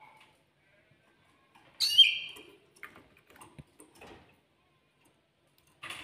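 Canary giving one short, loud call about two seconds in, followed by a few faint chirps and clicks.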